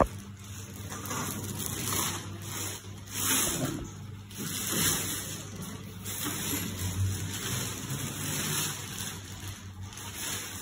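Clear plastic packaging wrap crinkling and rustling in irregular bursts as it is pulled off a fabric baby-cradle basket.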